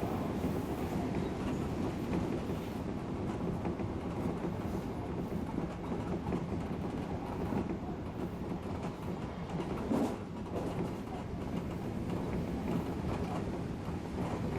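Odakyu electric train running at speed: a steady rumble of wheels on rail, with faint irregular clicks and one sharper knock about ten seconds in.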